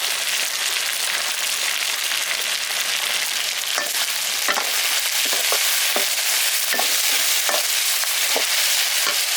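Food sizzling as it fries in a hot pan, with a steady hiss. From about four seconds in, a utensil scrapes and clinks against the pan several times as the food is stirred.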